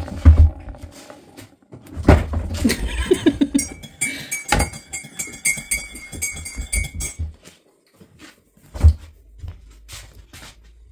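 A dog at its plastic food bowl: a string of knocks and clinks with a few low thumps. An electronic chime rings for about three seconds in the middle.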